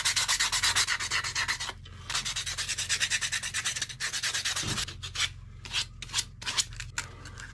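60-grit sandpaper rubbed quickly back and forth by hand over the lacquered wooden tote of a hand plane, stripping the lacquer: a fast scratchy rhythm of about seven strokes a second, pausing briefly about two seconds in, then turning slower and more scattered after about five seconds.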